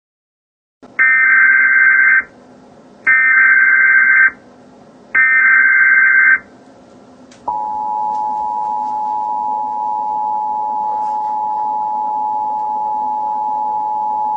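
Emergency Alert System SAME header: three bursts of two-pitch digital data tones, each about a second long and about a second apart. These are followed, about seven seconds in, by the EAS two-tone attention signal, a steady dual tone that holds to the end. Together they mark the start of an emergency alert broadcast.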